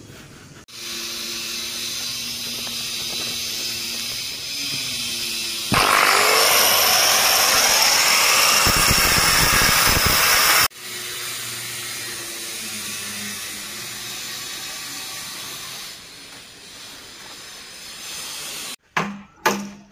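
Electric angle grinder: it starts with a steady whine about a second in, then from about six seconds in gives a loud, harsh grinding for about five seconds as the disc cuts, and returns to a steady free-running whine. A few sharp knocks follow near the end.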